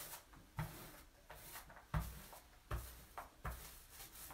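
A small paint roller worked back and forth through a gritty stone-textured countertop coating: faint rubbing broken by soft knocks every second or so as the strokes turn.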